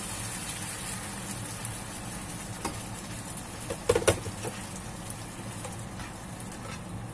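Tomato sauce simmering and sizzling in a frying pan just after water has been added, with a slotted spatula knocking against the pan a few times about four seconds in.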